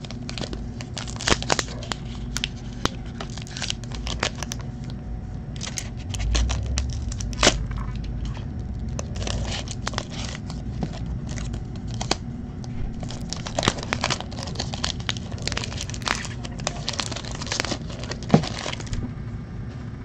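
Upper Deck Trilogy hockey card pack wrapper being torn open and crinkled in the hands: an irregular run of crackles and rips.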